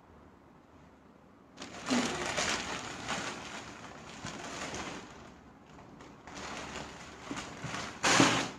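Saree fabric rustling as it is unfolded and handled, in two stretches, with a louder swish near the end.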